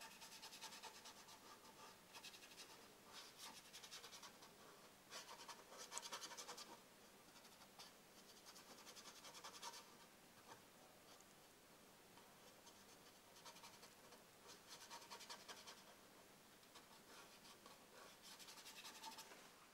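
Faint scratchy strokes of a dry paintbrush dragged across a painted board, coming in short bursts of brushing with pauses between them.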